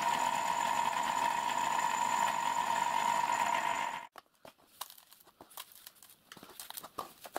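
Milling machine running with a steady whine while a drill cuts a hole in a metal pump-body casting; it stops abruptly about four seconds in. Then faint scratching and clicking from a brush sweeping brass chips off the vice.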